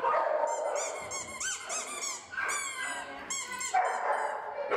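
A dog barking and whining in several quick runs of high-pitched yips.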